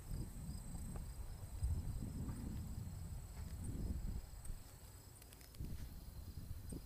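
Insects, crickets by their sound, chirping steadily in a high pulsing trill over a low rumble that swells and fades, dipping about three-quarters of the way through.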